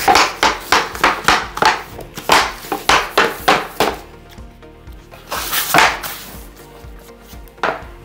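Heavy-duty tapping block knocking against the end of a vinyl plank in quick light taps, about three a second, to close the click-lock joint. The tapping stops briefly past the middle, with one longer burst, and starts again near the end.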